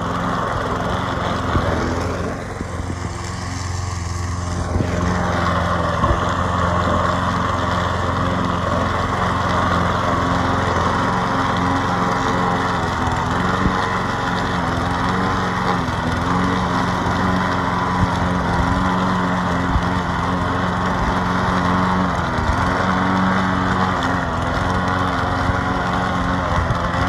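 Small gas engine of a 21-inch Bolens walk-behind push mower running steadily under load while mowing, dipping briefly a couple of seconds in. It runs without surging now that a crack in its air intake has been sealed with epoxy.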